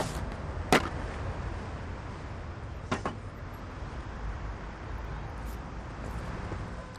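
Steady low rumble of city street traffic, with two sharp clicks: a loud one just under a second in and a softer one about three seconds in.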